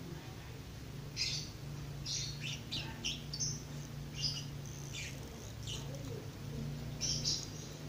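Birds chirping: short high chirps scattered through, some in quick runs, over a low steady hum.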